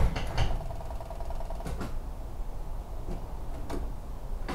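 A 1984 Camaro Z28's 5.0-litre V8 cuts out right at the start, leaving a quiet stretch with a few light clicks, and begins cranking again just at the end.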